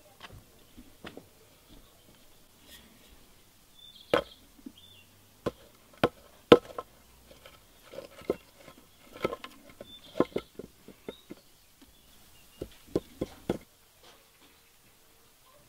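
Irregular sharp knocks and clicks of pieces of a fired loam casting mold being broken apart and handled on a wooden board; the loudest come about four, six and ten seconds in, and they stop shortly before the end.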